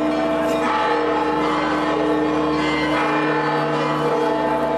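Church bells ringing, struck again and again, each stroke's tones ringing on under the next.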